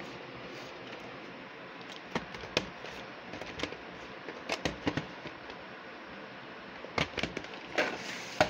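VHS tapes and their plastic cases being handled: scattered sharp clicks and knocks, with a short sliding rustle near the end.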